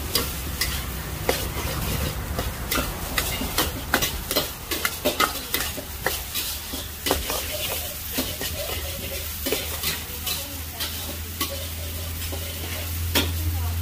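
Metal spatula scraping and clanking against a steel wok as pad thai noodles are stir-fried, with the food sizzling. The clanks come thick and fast for the first several seconds, then grow sparser.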